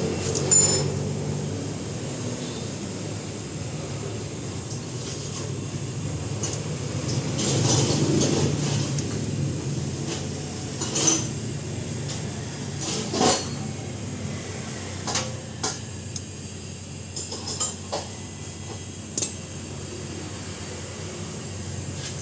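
Metal tools and parts clinking and tapping, about ten scattered sharp clinks, over a steady low hum that swells around eight seconds in.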